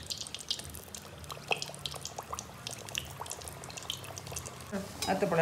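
A vada deep-frying in hot coconut oil in an iron kadai: a steady crackling of many small pops as the bubbles break.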